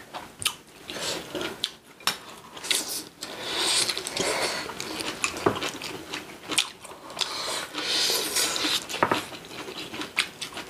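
Eating at a table: chopsticks and spoons clicking and scraping against dishes, with bursts of chewing.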